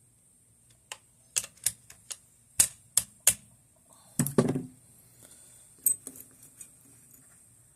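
Parts of an AK-47 being handled while new furniture is fitted: a run of about eight sharp clicks and knocks, a short rattling scrape about four seconds in, then a few lighter clicks.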